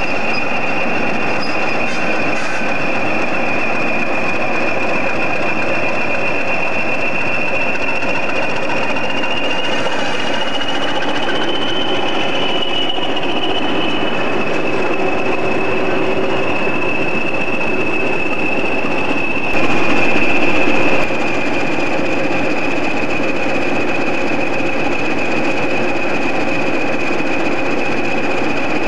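A pair of British Rail Class 20 diesel locomotives running slowly at low power, their English Electric engines giving a steady rumble with a high whistle over it that rises a little midway and settles back. A brief louder stretch comes about two-thirds of the way through.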